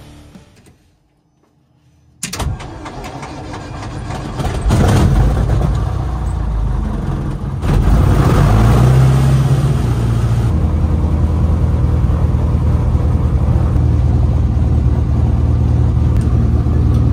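Van's RV-14 light aircraft's four-cylinder Lycoming engine, newly fitted with new cylinders, starting up about two seconds in. It builds in two steps over the next few seconds, then runs steadily, heard from inside the open cockpit.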